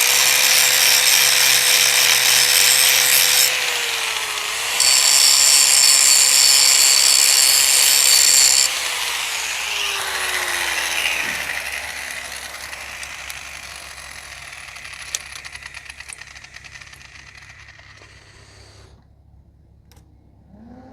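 Angle grinder grinding metal bare for a welder's ground clamp: the motor spins up, grinds in two passes with a short break between, then is let go and winds down with a falling whine that fades away.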